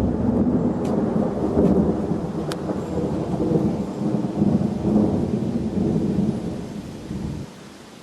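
Thunder rumbling in long rolls, loudest at the start, then dropping off sharply near the end to a steady hiss of rain.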